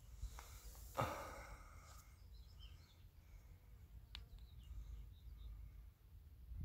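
Quiet outdoor ambience: a low rumble with a sharp knock, likely a footstep, about a second in and a click around four seconds. Faint bird chirps come in the middle.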